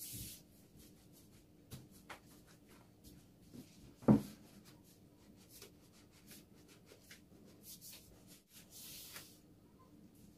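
A long, thin wooden rolling pin rolls and slides thin baklava dough over a floured wooden table, making soft rubbing and swishing sounds. One sharp wooden knock comes about four seconds in.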